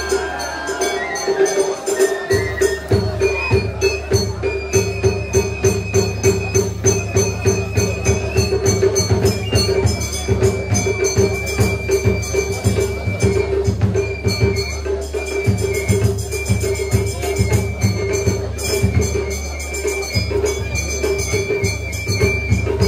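Traditional Japanese festival music (matsuri-bayashi) with jingling metallic percussion in a quick, even rhythm under a high melody of long held notes.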